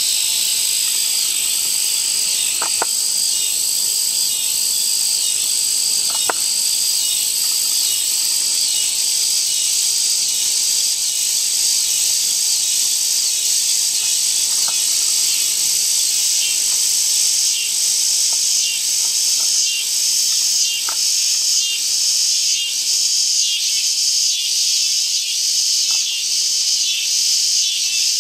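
Dense chorus of insects, a steady high-pitched shrilling that takes on an even, pulsing rhythm from a little past halfway through.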